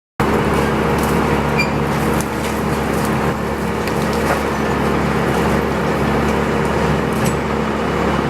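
An engine running steadily during tree-removal work, with a few scattered sharp cracks like wood splintering.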